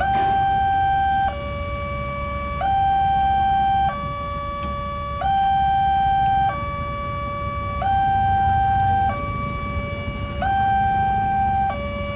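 Railway level-crossing warning alarm sounding a steady two-tone signal. It alternates between a higher and a lower note, each held about 1.3 seconds, with the higher note louder. This is the warning that a train is coming while the barriers are down. A low rumble of waiting vehicles runs underneath.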